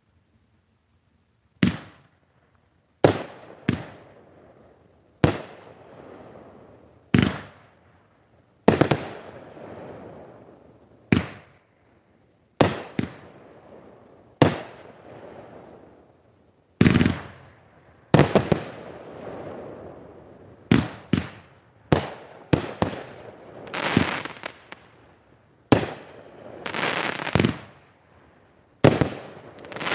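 Consumer firework cake firing about twenty sharp bangs, one every second or so, after a quiet first second and a half. Each shot bursts overhead and trails off in a fading crackle, and the crackling grows denser and longer near the end.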